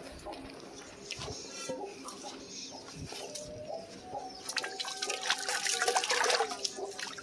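Water from a garden hose pouring and splashing into a shallow metal pan to wash it out. The splashing grows louder about halfway through.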